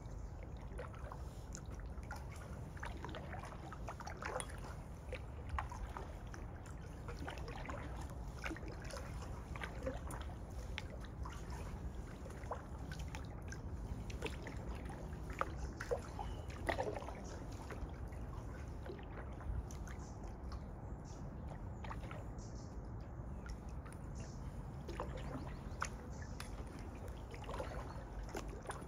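Kayak paddle strokes in calm water: small, irregular splashes and drips off the paddle blades over a low steady rumble.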